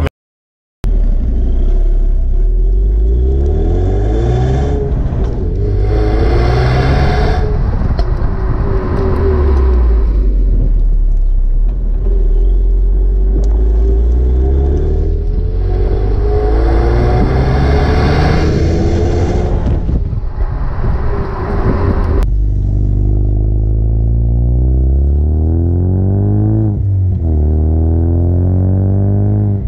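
Ford Mustang EcoBoost's turbocharged 2.3-litre four-cylinder heard through an MBRP Race cat-back exhaust, recorded at the tailpipe as the car accelerates. The exhaust note climbs and drops back with each upshift, over several pulls.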